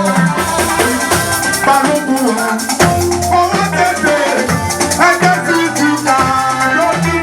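Church band music: a shaker rattles a steady, busy beat over drums, bass notes and a melodic instrument.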